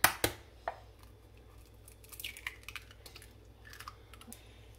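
An egg carton being opened: a few sharp clicks right at the start, then faint crackling and light ticks as an egg is lifted out of it.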